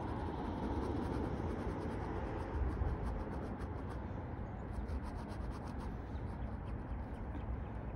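Ink pen scratching on sketchbook paper in quick, short hatching strokes, over a steady low rumble.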